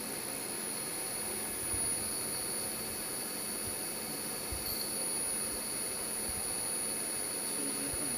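Laser marking machine running while it marks a stainless steel plate: a steady fan-like hiss with two faint, steady high-pitched whines above it.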